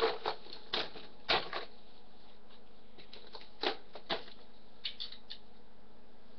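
Irregular clicks and light knocks from scooter parts and tools being handled during tightening, about ten in all, spread unevenly, with several close together in the first second and a half.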